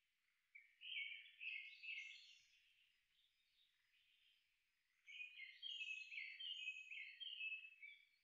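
A songbird singing two quick phrases of many short, high chirping notes: one about half a second in, lasting around two seconds, and a longer one from about halfway through, lasting some three seconds.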